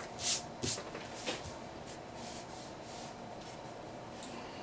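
Marker pen drawing on a sheet of paper: a few quick scratchy strokes in the first second and a half, then fainter, slower strokes.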